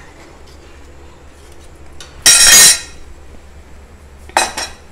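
Kitchen utensils and dishes clattering: one loud clatter lasting about half a second a little past halfway, then a shorter clink near the end.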